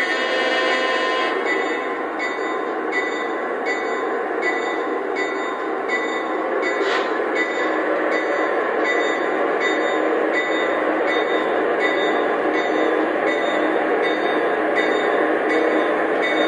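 Lionel Legacy RailSounds of two O-scale GE AC6000CW model diesel locomotives running together: a steady diesel engine rumble from their onboard speakers, mixed with the noise of the wheels on three-rail track. A faint high tone repeats about every two-thirds of a second.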